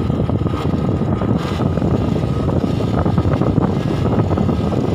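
Motorcycle running along a rough dirt mountain trail: a loud, steady low rumble of engine and wind noise on the microphone.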